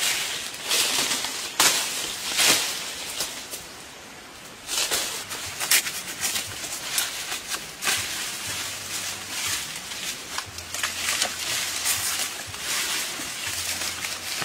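Leaves and branches rustling and crackling in irregular bursts as a person pushes through dense undergrowth and climbs a tree trunk, with a quieter moment about four seconds in.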